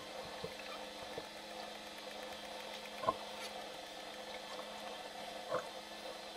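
Underwater ambience: a steady hiss with a low hum, broken by three short pops at the start, about three seconds in, and near the end.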